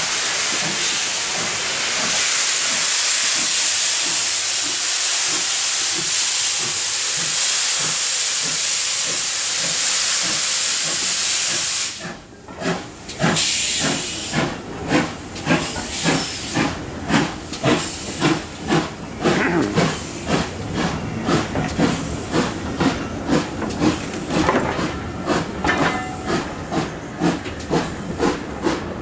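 Loud, steady hiss of steam from GWR 57xx pannier tank locomotive no. 5764 as it pulls out. After a sudden break about twelve seconds in, its coaches roll past with the wheels clicking over the rail joints in a regular rhythm that quickens as the train gathers speed.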